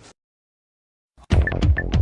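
About a second of silence, then loud electronic dance music with a fast, steady beat starts abruptly.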